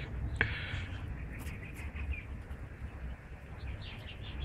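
Faint bird chirps over a steady low rumble, with a single sharp click about half a second in.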